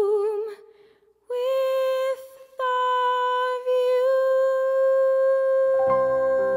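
A woman's voice holding long sung notes with vibrato, unaccompanied: three notes with short breaks between, the last held for several seconds. Instrumental accompaniment comes in under it near the end.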